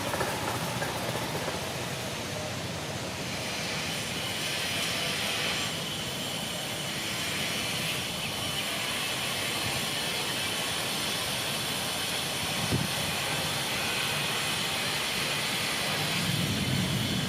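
Heavy wind rushing steadily, with a higher hiss rising in it from a few seconds in and easing near the end. A single short knock comes about two-thirds of the way through.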